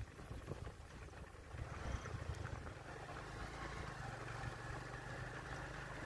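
Motorcycle engine running as it rides along a rough gravel road, with wind and tyre noise. Many short knocks from the bumpy surface in the first two seconds, then a steady engine hum.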